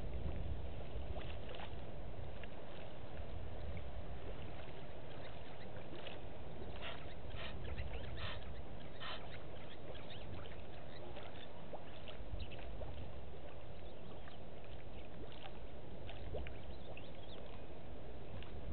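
Outdoor bush ambience: a steady low rumble of wind on the microphone, with scattered short clicks and calls, thickest around the middle.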